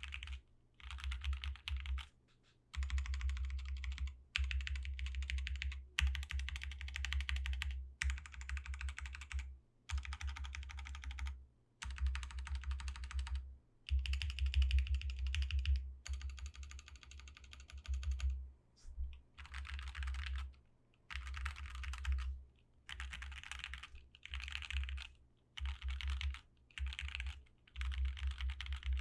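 Typing on a prototype Abasic gasket-mount mechanical keyboard with Lavender switches, an aluminium plate and a tape mod. The keystrokes come in runs of one to three seconds with short pauses between them.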